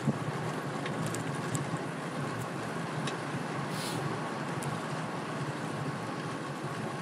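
Steady rush of wind on the microphone with a low steady rumble of riding through traffic, and a short hiss about four seconds in.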